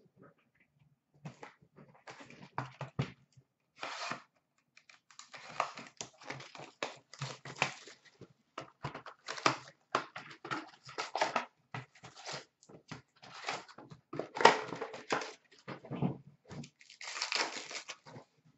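A cardboard box of hockey card packs being torn open and the foil packs handled: a long run of irregular rips, crinkles and clicks, with a longer stretch of crinkling near the end.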